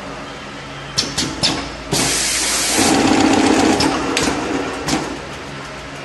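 YH-68210 multi-core sheathed cable lug crimping machine running a work cycle on a fed cable: a few sharp clicks about a second in, a loud hiss of air lasting about a second, then the mechanism running with a hum and more clicks, settling back to a steady hum near the end.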